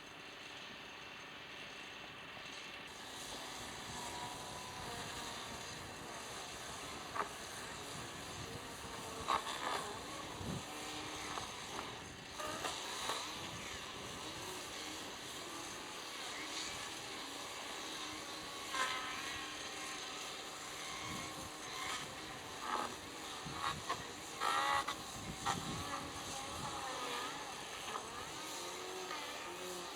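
An engine running steadily, with scattered sharp knocks and clanks from hut demolition work.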